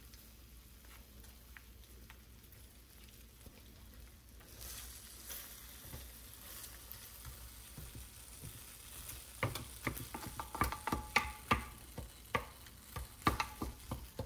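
Wooden slotted spatula stirring and breaking up baked feta and roasted cherry tomatoes in a glass baking dish. It is quiet at first, then from about halfway comes a quick run of knocks and scrapes of the wood against the glass.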